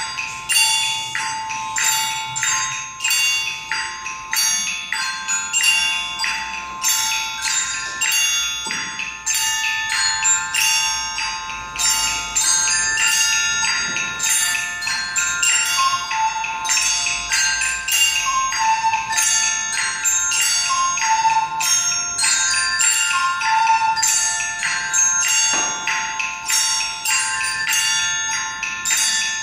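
Several glockenspiels struck with mallets in a steady beat of ringing metal notes, played as a classroom ensemble. A soprano recorder plays a melody over them through the middle stretch.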